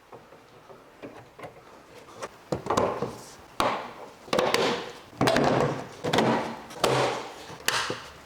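Plastic bumper trim being worked and pressed into place by hand: a quiet start, then about seven sharp rubbing knocks, roughly one every second, each trailing off briefly.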